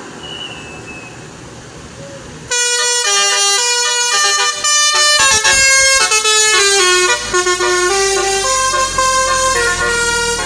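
Indonesian bus 'telolet' horn, a set of multi-tone musical air horns, bursting in about two and a half seconds in and playing a quick tune of stepping notes, several sounding at once. Before it there is only steady background noise.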